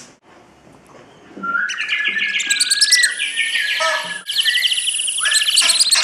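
Many birds chirping at once, a dense chatter of quick high chirps that starts about a second and a half in and carries on.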